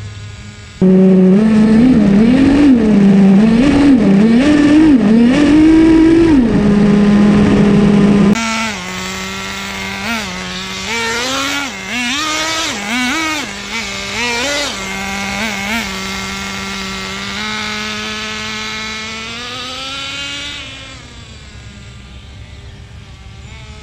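Traxxas Jato 3.3's TRX 3.3 two-stroke nitro engine revving up and down. For the first several seconds it is very loud and wavers in pitch, then it gives a quick series of short throttle blips. It holds a steady pitch for a few seconds, then rises once and drops away sharply in level near the end.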